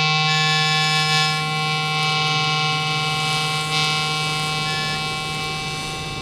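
A steady droning tone with many overtones, held without a break and slowly fading: a sustained drone in the film's music.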